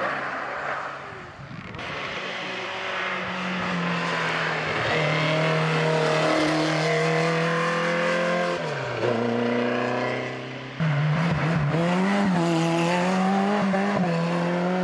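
Historic competition cars' engines pulling hard up a hill-climb road one after another. One engine climbs in pitch and drops sharply at a gear change about nine seconds in. After a sudden cut near eleven seconds, another engine revs loudly close by, its pitch rising and wavering.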